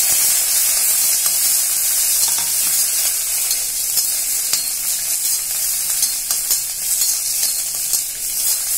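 Cumin seeds, coriander seeds, ginger and green chillies sizzling in hot coconut oil in an iron kadai: a steady crackling hiss as the seeds fry, with light scrapes and clicks of a steel slotted spatula stirring them against the pan.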